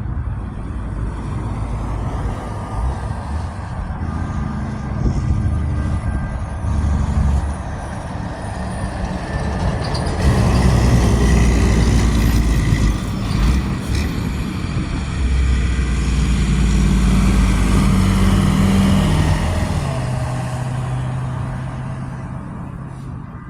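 Road traffic: heavy vehicles such as trucks or buses running past with a deep engine rumble, growing louder twice in the second half, once with a brief hiss like an air brake.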